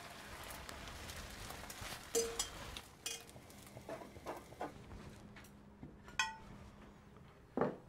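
Kitchen clatter: a series of separate clinks and knocks from a frying pan, dishes and utensils, one clink ringing briefly near the end.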